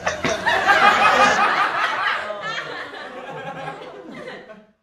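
A woman laughing, the laughter getting weaker and fading out, cut off just before the end.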